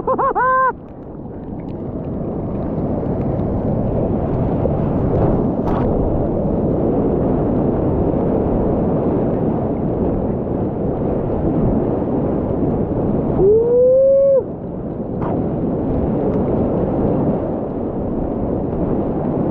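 Ocean surf breaking and whitewater rushing around a kayak, a loud steady wash. A person lets out a brief whoop at the very start, and another rising, held whoop about 13 seconds in.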